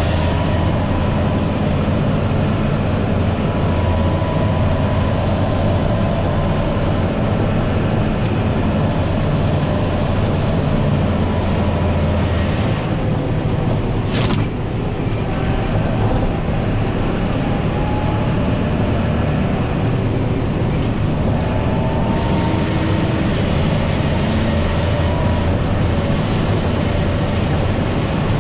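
John Deere 7530 tractor's six-cylinder diesel engine running steadily under load as it pushes a front snow plow, heard inside the cab. A single sharp click about halfway through.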